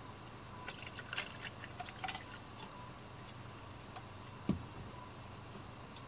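Liquid being poured or dribbled into a cup in a quick run of small trickling clicks, then a single soft thump a few seconds later.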